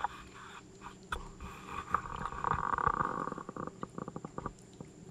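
Raccoon and opossum eating wet oatmeal and sandwich from plates: wet chewing and smacking, with scattered clicks and a quick run of smacks near the end.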